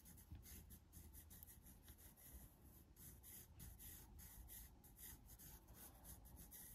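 Faint scratching of a pencil drawing on thick watercolour paper, in short, uneven strokes.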